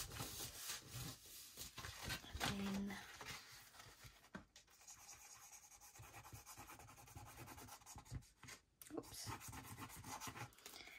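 Faint rubbing and rustling of hands smoothing and handling cardstock, with light scratchy strokes as a glue tube's nozzle is drawn along the paper's edge.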